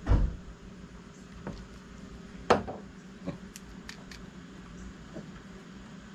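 Handling of a syringe and a plastic medicine bottle: a dull thump at the start, then a sharp knock about two and a half seconds in as the bottle is set down on a wooden table, followed by a few light ticks as the syringe is handled upright, with a steady low hum underneath.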